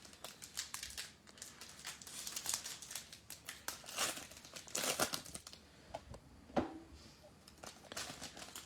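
A plastic-foil trading-card pack wrapper being torn open and crinkled by hand, in a run of irregular crackles that is loudest about halfway through.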